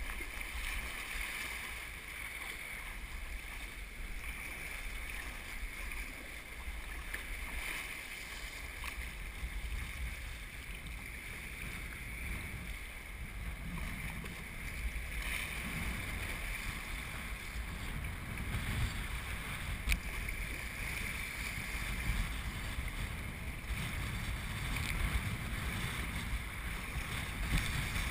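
Choppy sea water sloshing and splashing around a sea kayak as it is paddled, with a low wind rumble on the microphone.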